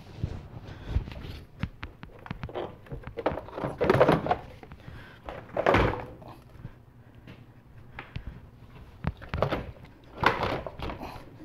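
A car battery being lowered into its tray and shifted into place: scattered knocks and clunks of plastic casing against the tray and nearby parts, louder ones about four, six and ten seconds in.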